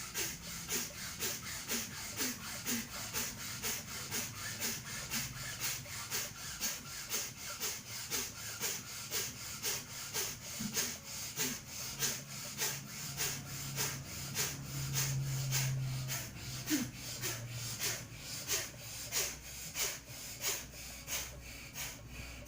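Rapid, forceful breaths pumped in and out through the nose in a steady rhythm of about three strokes a second, like a bicycle pump: a yogic pumping-breath exercise.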